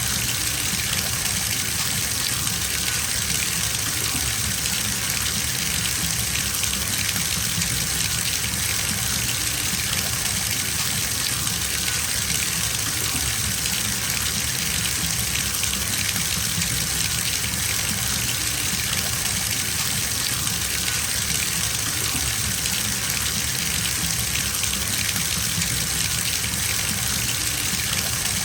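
Bathtub filling from the tap: a steady gush of water pouring into the tub, even and unbroken.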